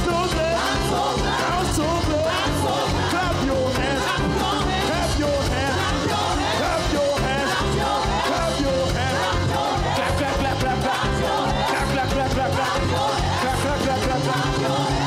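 Live gospel praise band playing an upbeat song: keyboard, electric bass guitar and drum kit, with voices singing along.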